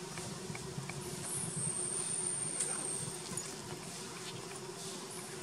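Forest ambience of buzzing insects, with a steady low hum throughout. About a second in, a thin high insect whine starts and holds steady for about two seconds.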